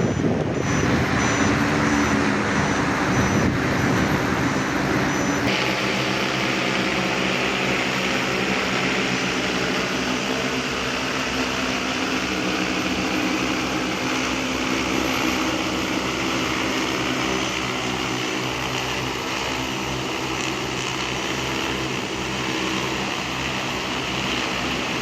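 Large multirotor cleaning drone's propellers running steadily: a loud whir with a hum of several steady tones. The sound changes about five seconds in.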